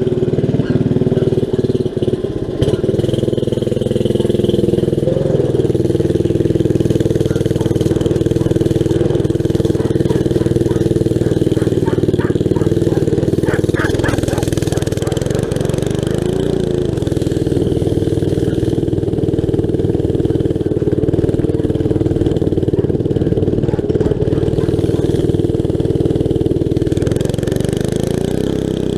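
5 hp Briggs & Stratton flathead engine with a gutted muffler running at steady speed while driving a go-kart. Its pitch dips and picks up again twice, about halfway through and near the end.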